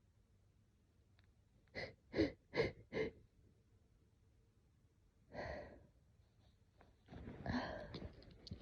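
A woman's breath catching in four quick, sharp hitching gasps, about two seconds in, during an allergic sneezing fit. A longer breathy exhale follows a couple of seconds later, then a stretch of rustling near the end.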